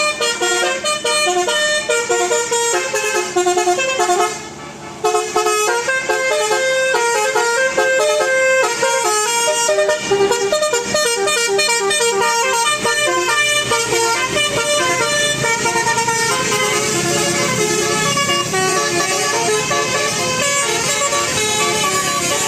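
Bus's multi-tone Basuri telolet horn playing a fast tune of short, stepped horn notes, with a brief pause about four seconds in. A low rushing noise rises underneath in the second half.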